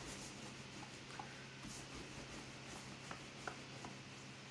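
Faint rubbing of hands gliding over a sheet of fresh egg pasta dough wrapped on a long wooden rolling pin, the pin moving on a wooden pasta board, with a few light ticks.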